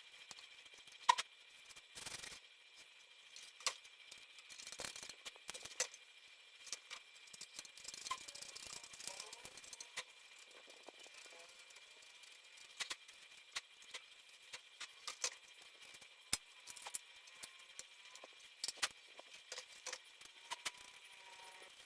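Irregular sharp clicks and light rattling of small hard parts being handled, typical of taking apart or refitting the panels, screws and components of a desktop PC case.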